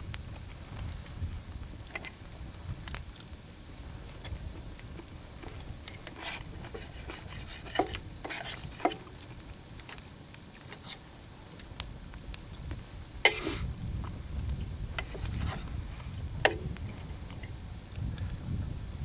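Insects chirring steadily in one even, high-pitched tone, with a few sharp clicks and scrapes of a knife on a metal plate.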